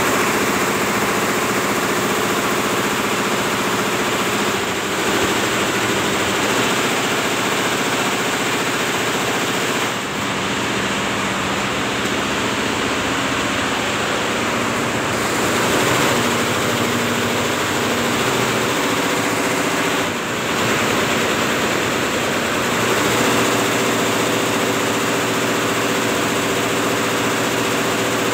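Multi-head computerized embroidery machine (Liberty) running steadily, its needle heads stitching, a continuous mechanical running noise.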